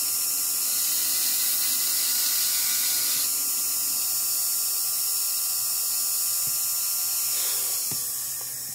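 Small high-speed rotary tool spinning a fine sintered dental bit against wet fire agate, a steady high whine that tapers off near the end.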